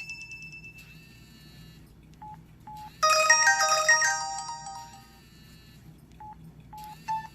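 Samsung Wafer cell phone playing ringtone previews through its small speaker. About three seconds in, a bright chiming tune of quick bell-like notes rings out and fades over about two seconds. Short single-pitch beeps from the phone come before and after it as the ringtone list is scrolled.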